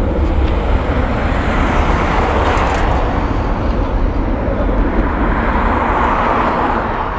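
A large aircraft flying past, its engines making a loud, steady rushing noise that swells twice.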